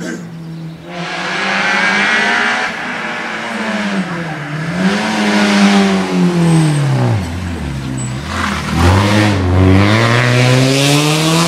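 Rally car engine revving hard through several upshifts as it approaches. About seven seconds in, the revs fall steeply as it slows for the bend, then they climb again as it accelerates away.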